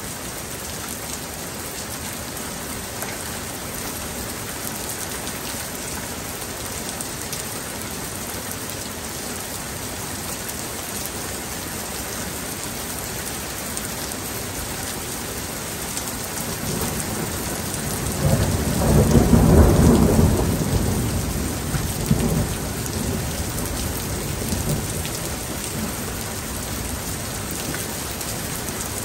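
Steady rain falling, with a peal of thunder partway through: a low rumble builds, peaks, then rolls away over several seconds.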